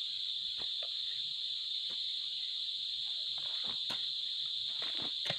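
Steady, high-pitched insect chorus, like crickets, filling the background, with a few faint knocks and rustles from containers being handled.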